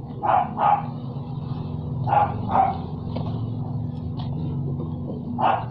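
A dog barking in the background: two pairs of short barks, then a single bark near the end. A steady low machine hum runs underneath.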